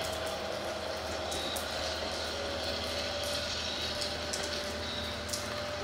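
Steady rain with scattered drops tapping, over a low steady hum of a diesel locomotive's engine.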